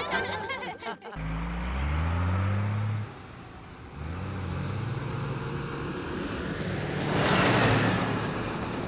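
Container truck engine running and rising in pitch as it speeds up, dropping back about two seconds in and climbing again, like gear changes. A hiss comes near the end.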